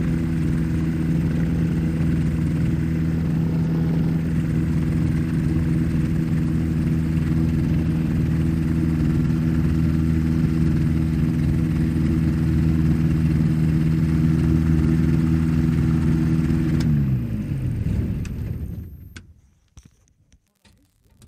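Rotax 582 two-stroke twin engine of a 1987 Spectrum Beaver ultralight running steadily at taxi power, then shut down about 17 seconds in, its pitch sliding down as engine and propeller spin to a stop over about two seconds.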